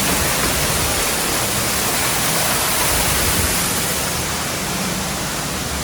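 Waterfall rushing, a loud steady wash of falling water.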